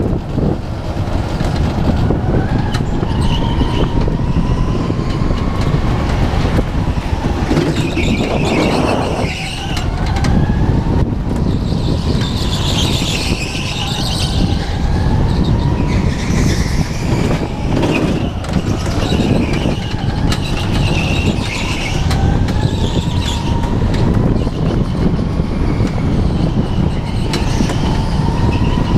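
Onboard sound of a go-kart driven at speed on a sealed concrete track: a steady heavy rumble and rattle of the kart's chassis. A faint whine rises and falls with speed, and higher squeals come through some corners.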